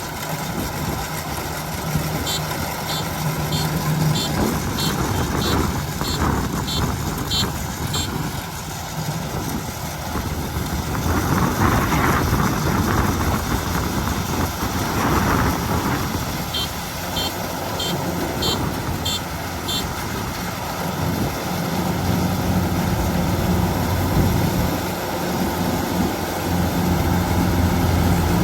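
Combine harvester's diesel engine running steadily, with a high electronic alarm beeping about twice a second in two spells.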